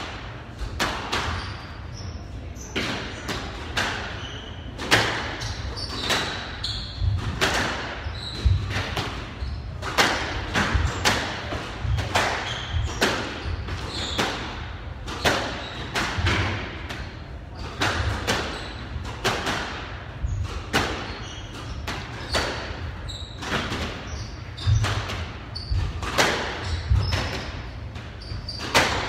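Squash rally: the ball is struck by rackets and smacks off the court walls in sharp hits about once a second, with short high squeaks of court shoes on the wooden floor between the hits.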